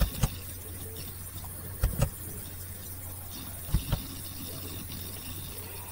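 A steady low background hum with three short, soft knocks: one at the start, one about two seconds in and one just before four seconds.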